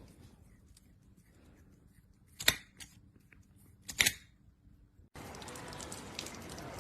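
Two sharp clicks or knocks about a second and a half apart over a quiet room, then a sudden switch to a steady hiss with faint crackling.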